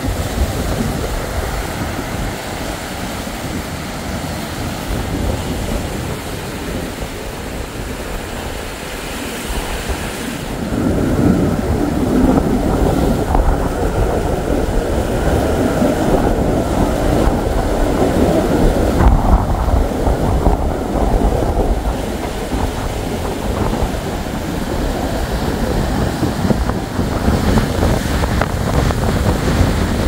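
Rough storm surf breaking on the shore and crashing over rock ledges, a continuous rushing with a deep rumble, with wind buffeting the microphone. It grows louder about a third of the way in.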